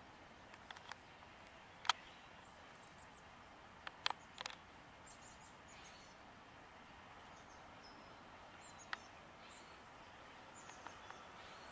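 Quiet outdoor ambience with faint, high chirps of small birds scattered throughout. A few sharp clicks cut through it, the loudest about two seconds in, a cluster around four seconds and one more near nine seconds.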